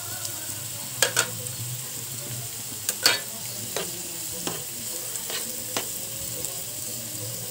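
Chopped onions and tomatoes sizzling in oil in a frying pan while a spatula stirs them, scraping and tapping against the pan several times, the sharpest strokes about a second in and about three seconds in.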